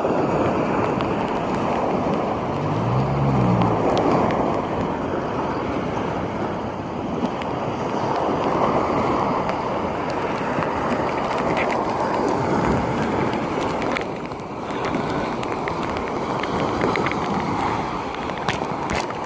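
Wind buffeting the microphone over small waves breaking and washing up on a sandy beach: a continuous rushing that swells and eases with each wave.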